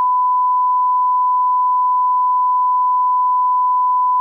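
Steady 1 kHz line-up tone of the bars-and-tone leader that runs with SMPTE colour bars: a single unbroken, unwavering beep used as the reference for setting audio levels.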